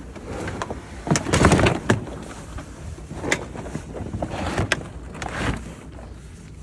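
Plastic totes and drink packs being handled and unloaded from a car: a string of knocks and clatters with rustling between them, the loudest a little over a second in.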